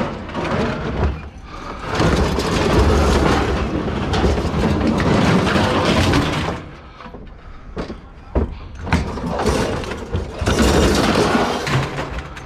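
Scrap metal being dragged and thrown off a truck bed: long stretches of scraping and crashing metal, with a few sharp clanks partway through.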